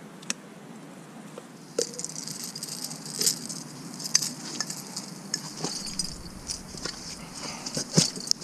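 Irregular light rattling and clicking, starting about two seconds in and growing busier toward the end.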